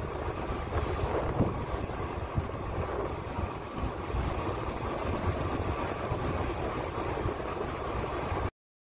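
Wind buffeting the microphone over the steady rush of sea water streaming along the hull of a container ship under way. The sound cuts off suddenly near the end.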